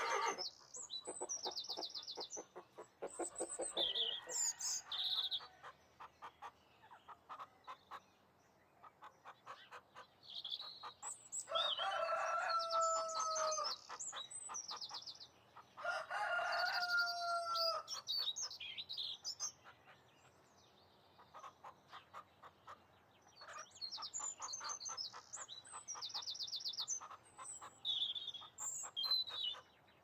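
Farmyard poultry: a rooster crows twice in the middle, the two crows about four seconds apart, among hens clucking and small birds chirping throughout.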